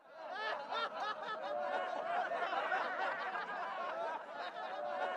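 A crowd of many men shouting and cheering together, starting suddenly and continuing without let-up.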